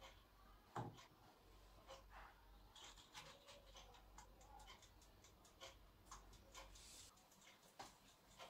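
Faint clicking of a Kirin toaster oven's rotary control knobs being turned: a single knock about a second in, then a quick, irregular run of small clicks, with one more knock near the end.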